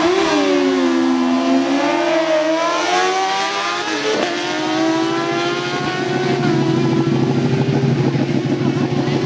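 Two litre-class sport bikes launching hard off a drag-strip start line, their engines revving high and climbing in pitch through the gears, with a sharp gear change about four seconds in. In the second half a steadier engine drone holds.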